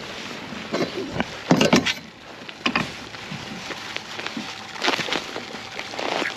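Handling noise in a kayak: irregular sharp knocks and rustles as a caught tautog is moved onto a measuring ruler, with the loudest cluster of knocks about one and a half seconds in.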